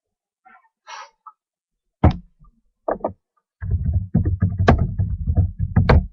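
Knocks and close handling noise as trading cards are handled on a table near the microphone: two sharp knocks, then a run of dull thuds and clicks in the last couple of seconds.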